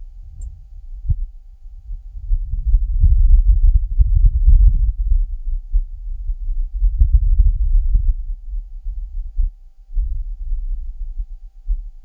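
Martian wind gusting over the Perseverance rover's microphone: low buffeting that swells twice, about three to five seconds in and again around eight seconds, with short pops in the gusts and a faint steady tone underneath.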